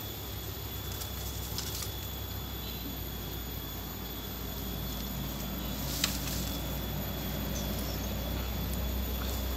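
Footsteps and rustling through dry bamboo leaf litter, over the low rumble of a handheld phone being moved about. A sharp snap or click sounds about six seconds in.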